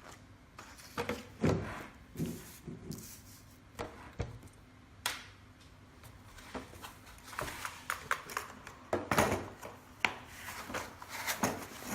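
Irregular knocks, clicks and rustles of small items being handled and moved around in the iriscope kit's case, with a few sharper knocks along the way.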